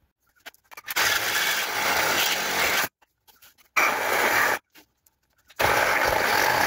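Reciprocating saw (Sawzall) cutting through the steel leaf-spring hanger on a truck frame, in three bursts: a long one of about two seconds, then two shorter ones, each stopping abruptly.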